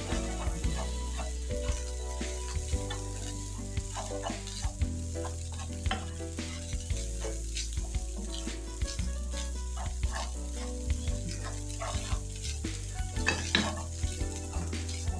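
Stir-fry spaghetti and vegetables sizzling in a non-stick pan while a wooden spatula tosses them, with frequent short knocks and scrapes of the spatula against the pan.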